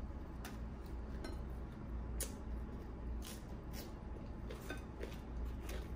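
Crisp deep-fried puri being torn apart by hand and eaten, giving a few short, scattered crackles and clicks over a low steady hum.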